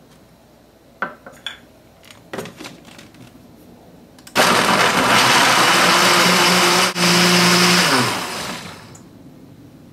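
Countertop blender motor running as it purées chopped mango, milk, yogurt and sugar. It starts suddenly about four seconds in, cuts out for an instant just before seven seconds, runs again and winds down about a second later. Before it, a few light knocks as the lid is fitted onto the plastic jar.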